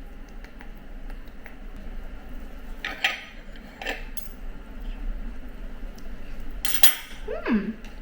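Knife and fork clinking against a plate while eating steak: a few sharp clinks, the loudest one near the end, followed by a brief falling voice-like sound.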